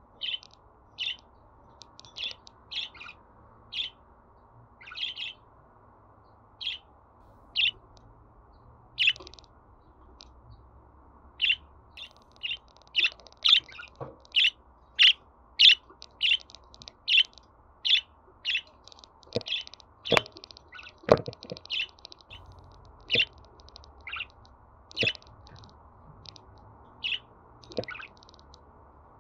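Budgerigar chirping: a string of short, sharp chirps, coming thicker and louder through the middle.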